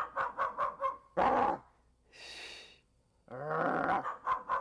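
Dog barking in rapid runs of short yips, about seven a second, in two runs with a pause near the middle. A short rising howl-like call starts the second run.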